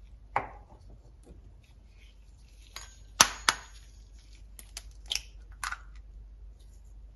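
An egg being cracked open over a ceramic baking dish: a run of sharp taps and knocks of the shell, the loudest two about three seconds in, then brief crackles as the shell is broken apart.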